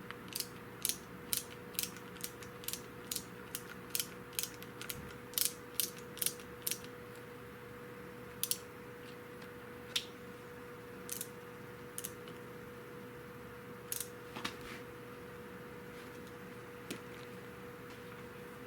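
Sharp mechanical clicking: a quick run of clicks about two a second, then scattered single clicks. A faint steady hum sits underneath.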